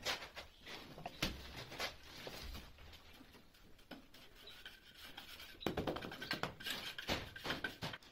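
Wooden battens being handled and set against tiles and concrete: scattered knocks and scrapes of wood, with a busier run of them in the second half.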